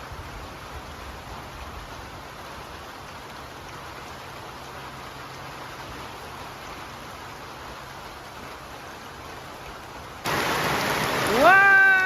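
Steady rain falling. About ten seconds in the rain noise suddenly grows much louder, and near the end a single high-pitched call sweeps up and then holds.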